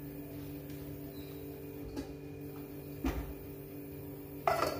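Kitchen handling sounds: a knock about three seconds in, then a stainless-steel lid clattering onto the rim of a pan near the end, with a brief metallic ring.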